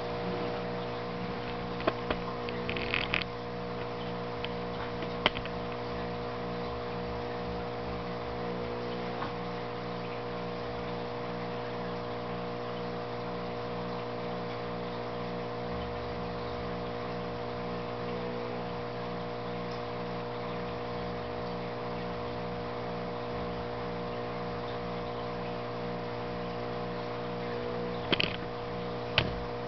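Steady electrical hum of a running aquarium pump, several fixed tones with one pulsing at an even beat. A few sharp clicks come about two to five seconds in and again near the end.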